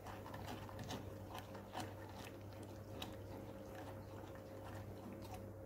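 Faint scraping and light taps of a spoon stirring thickening milk custard in a steel saucepan, over a low steady hum.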